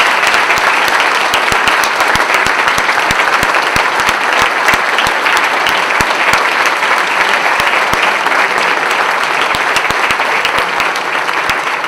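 Large banquet audience applauding steadily after a keynote speech, a dense, sustained clapping that eases slightly near the end.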